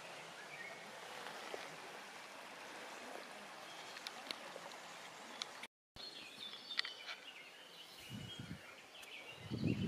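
Steady hiss of a shallow river flowing, with birds chirping. The sound drops out for a moment about six seconds in; after that, short bird chirps and a few low thumps are heard.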